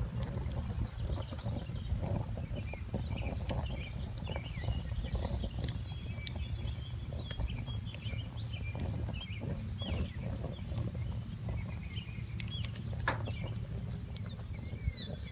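Charcoal briquettes and their paper bag burning in a small kettle grill, crackling with scattered small pops over a steady low rumble. Birds chirp throughout, with a quick run of repeated falling chirps near the end.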